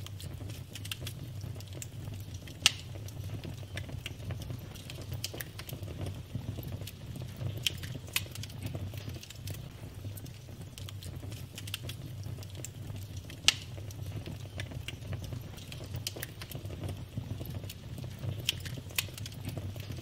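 Wood fire burning, with frequent small crackles over a low steady rumble. Two sharp, much louder pops come a few seconds in and a little past the middle.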